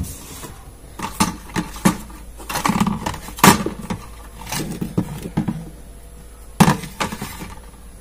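A clear plastic food container used as a float-valve water reservoir being handled on an incubator shelf: a series of plastic clicks, knocks and short scrapes, the loudest about three and a half seconds in.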